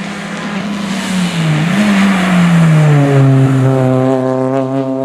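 Rally car engine running hard at high revs. Its pitch dips and climbs back about a second and a half in, then holds a steady note from about three seconds in.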